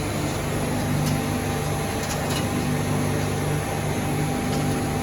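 Vacuum leak-test machine running: the vacuum pump set gives a steady low hum over a broad machine hiss, with a few faint ticks.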